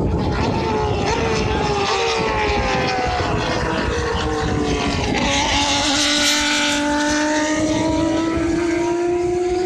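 Turismo Carretera race cars running past on the track, their inline-six engines at high revs. Several engine notes slide slowly in pitch as the cars go by, with a louder rush as one passes close about six seconds in.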